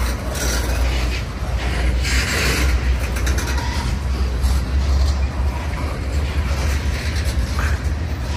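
Tank cars of a Union Pacific manifest freight train rolling past at close range: a steady low rumble of wheels on rail with scattered clicks.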